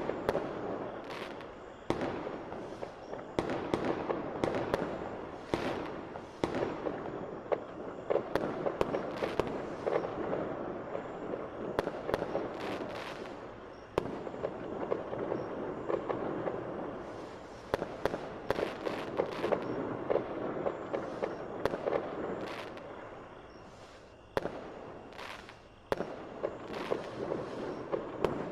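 Fireworks display: a dense run of sharp bangs and crackles, several every second, over a crackling din that swells and fades every few seconds.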